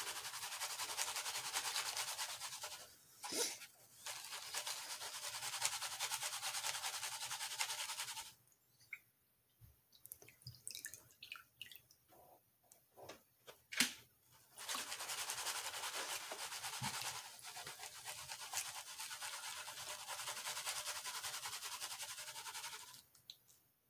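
Paydirt of sand and gravel shaken in a plastic gold pan under water: a steady rasping swish of grit against the pan. About eight seconds in it stops for some six seconds of scattered drips and small splashes as the pan is lifted out, then the shaking starts again.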